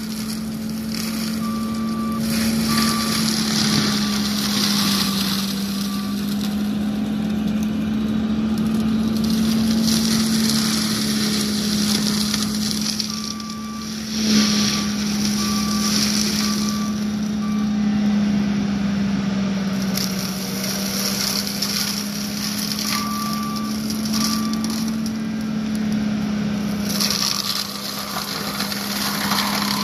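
John Deere 333G compact track loader's diesel engine running under load with a steady hum that wavers slightly in pitch, while its MH60C mulching head shreds brush in noisy surges. The loader's backup alarm beeps in three short spells: near the start, around the middle and about two-thirds through.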